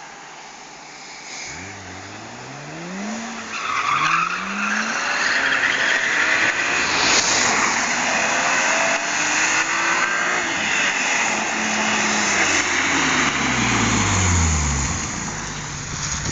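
BMW M3 E36 straight-six with a Supersprint exhaust revving up hard through a couple of gear changes, then running loud for several seconds with a strong rushing noise over it. Near the end the revs fall away and it settles to a steady idle.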